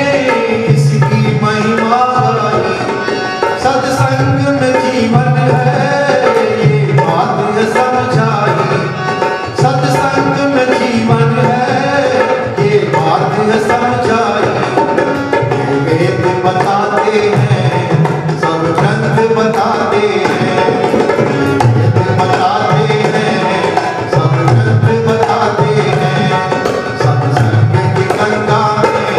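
Devotional bhajan music with tabla drumming keeping a steady rhythm under a melodic line.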